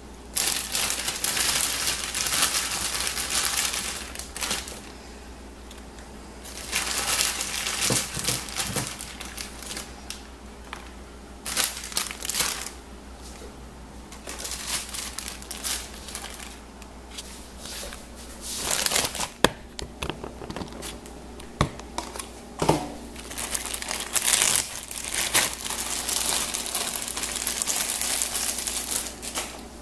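Plastic food bags crinkling as they are handled, in several bouts of a few seconds each, with a few light clicks and knocks between.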